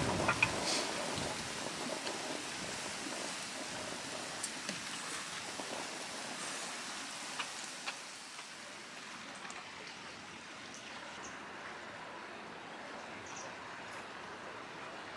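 Valley stream water running steadily, a wide even rush, with a few faint clicks in the first half.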